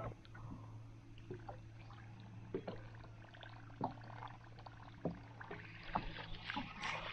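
Spinning reel being wound in on a topwater lure retrieve, with scattered light clicks and knocks of gear in a kayak and a steady low hum underneath; the winding is loudest near the end.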